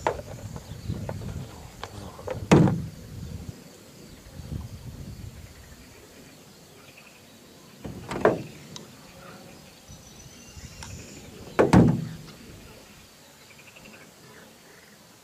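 Three sharp knocks, about two and a half, eight and twelve seconds in, with softer low handling noise between them in the first few seconds.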